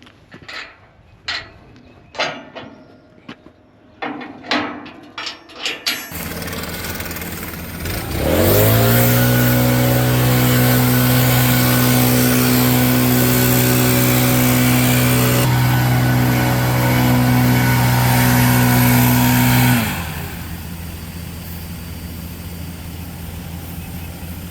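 An engine speeds up about eight seconds in, runs steadily at high speed for about eleven seconds, then drops back sharply to a quieter steady run. Before it, a string of sharp clicks and knocks.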